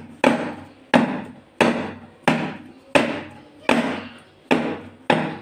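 A round metal cake tin full of sponge batter rapped down on a countertop eight times, an even knock about every two-thirds of a second, each ringing briefly. The tapping knocks air bubbles out of the batter before baking.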